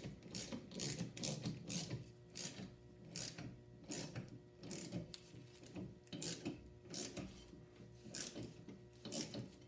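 Ratchet wrench clicking in repeated strokes, about two to three a second, driving a bolt into a threaded hole in a rear brake drum to force the stuck drum off the hub.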